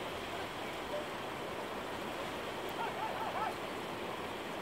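Steady rush of floodwater, with a few faint short high calls about three seconds in.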